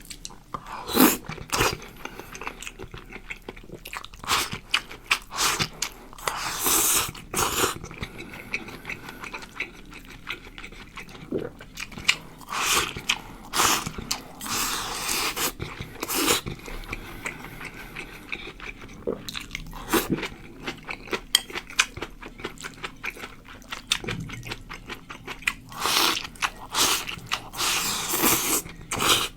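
Close-miked eating: a person chewing and biting into lobster rice, with irregular wet crunches and sharp clicks scattered throughout.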